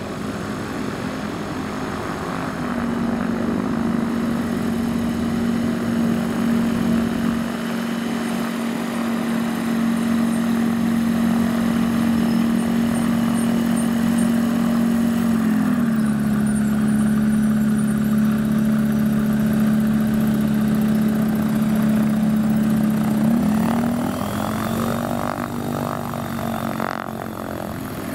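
Light single-engine propeller plane's piston engine running steadily while taxiing, a loud even drone. The pitch drops a little about halfway through and rises again near the end.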